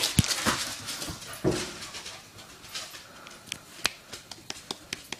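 Cavachon puppy playing with a tennis ball: scuffling and rustling, then a run of short, sharp clicks and taps in the second half.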